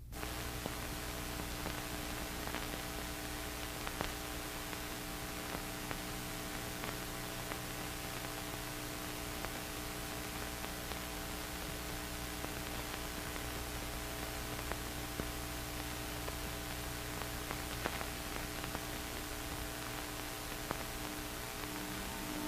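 Steady hiss with a low electrical hum and a few faint clicks, with no other sound over it.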